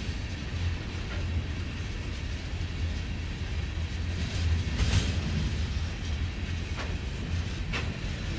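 Empty coal hopper cars rolling past on steel wheels: a steady low rumble, broken by a few brief sharp metallic sounds from the wheels and rails, the loudest about five seconds in and two more near the end.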